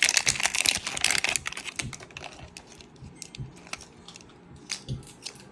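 Plastic packaging of a Mini Brands capsule being handled: a rapid crinkling and clicking for the first second or so, thinning to scattered small taps and ticks.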